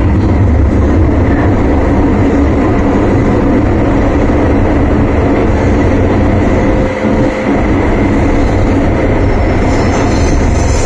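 Interior noise of an MTR M-Train electric multiple-unit running: a loud, steady rumble of wheels on the track with a faint steady whine above it.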